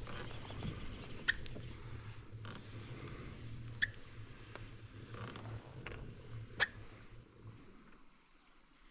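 Baitcasting reel being cranked to bring in a hooked fish on a light rod, a faint whirring with a few sharp clicks. The loudest click comes about two-thirds through. A low steady hum stops shortly before the end.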